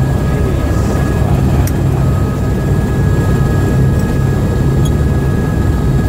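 Helicopter turbine and rotor noise heard from inside the cabin: a loud, steady drone with a faint high whine running over it.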